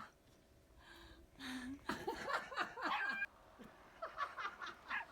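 Laughter in two stretches of short, choppy bursts, starting about two seconds in.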